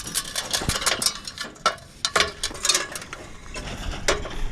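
A quick, irregular run of clicks, knocks and light metallic clatter: hand tools being handled and set down.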